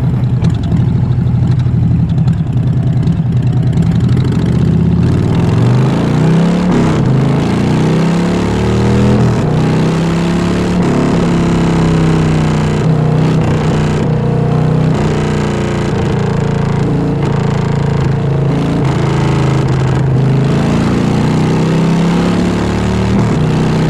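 Harley-Davidson Fat Bob 114's Milwaukee-Eight V-twin through a Vance & Hines full exhaust system, running steadily at first, then rising and falling in pitch again and again as the bike accelerates and shifts, from about five seconds in.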